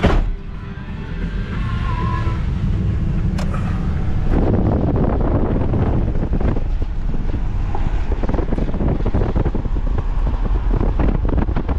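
Ford Super Duty pickup's door shutting with a single knock, then the truck driving off: a steady low rumble of engine and road with wind rushing in through the open window, growing louder about four seconds in as it gathers speed.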